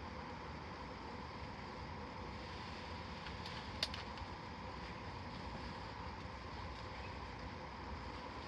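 Steady engine-like hum with a faint steady whine, and one sharp crack about four seconds in.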